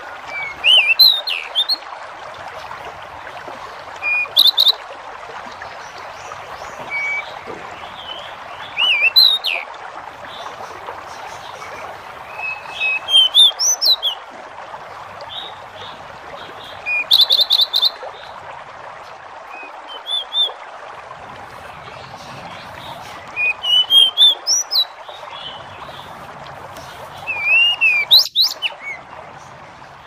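Pied bushchat (jidengan) singing short phrases of rising and falling whistled notes, some with quick repeated notes, every few seconds. A steady hiss of background nature sound runs underneath.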